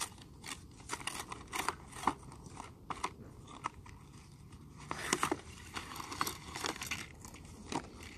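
Clear plastic packaging and paper instructions of a pumpkin-carving kit crackling and clicking as they are handled and opened, with irregular short crackles and a denser, louder stretch about five seconds in.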